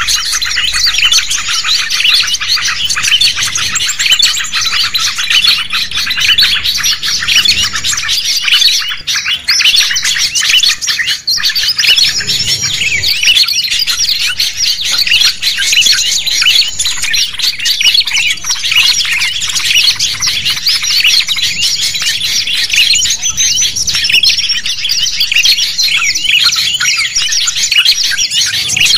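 Dense chorus of small songbirds chirping and trilling rapidly, many calls overlapping without a break. It is a mixed 'noisy birds' lure recording of the kind played to draw wild birds in.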